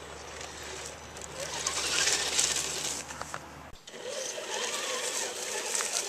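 Axial SCX10 RC rock crawler's electric motor and geared drivetrain whirring as it crawls over rock, loudest about two seconds in. The sound breaks off abruptly a little past halfway and then picks up again.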